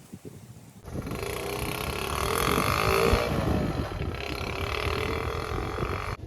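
Honda C70's small four-stroke single-cylinder engine running under way, its pitch rising and falling with the throttle over wind rush. It starts suddenly about a second in and cuts off abruptly just before the end.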